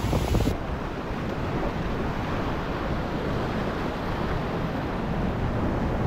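Ocean surf washing over and against the rocks in a steady rush, with wind buffeting the microphone.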